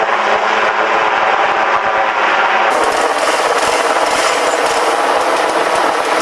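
AS 332 C1 Super Puma helicopter hovering close overhead while its load hook is lowered to the ground crew: a loud, steady, rapid rotor beat with turbine noise.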